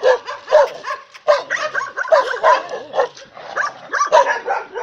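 Dogs barking and yapping over and over, a few barks a second, several voices overlapping.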